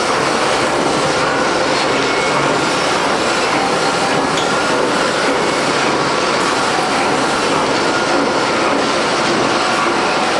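Horizontal boring machine running, its rotating facing head cutting the flange of a cast gate valve body: a loud, steady machining noise with a faint constant whine.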